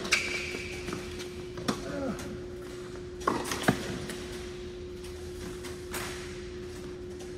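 Tennis rackets striking the ball during a rally on an indoor court. There is a sharp pop of a forehand right at the start, and two more pops about three and a half seconds in, as the ball is hit and bounces. A steady hum runs underneath.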